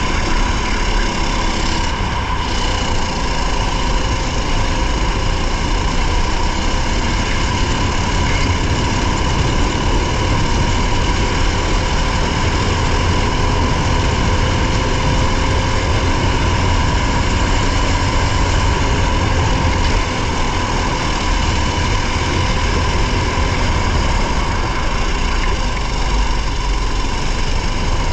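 Racing vehicle's engine running hard at a steady pitch, with heavy wind and road rumble on an onboard camera.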